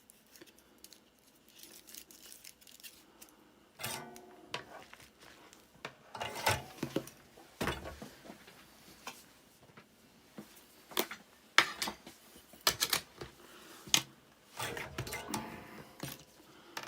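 Soldering tools handled on a workbench: scattered sharp clicks, taps and light rattles as a solder sucker and soldering iron are picked up and set down, with the sharpest click a little past halfway.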